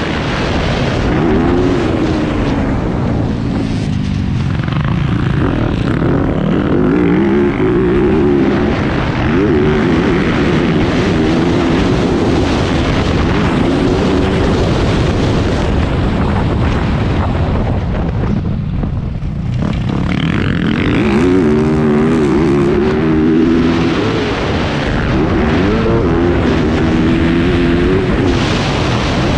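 2021 Yamaha YZ250F's 250 cc four-stroke single-cylinder engine revving hard under race throttle, its pitch climbing through the gears and falling back again and again, with a brief let-off about two thirds of the way through. Wind rushes over the microphone the whole time.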